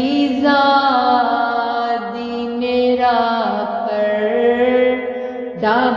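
A woman's voice chanting a matam noha (Shia lament) in Urdu, drawing out long held notes that bend and slide in pitch. A new phrase starts near the end.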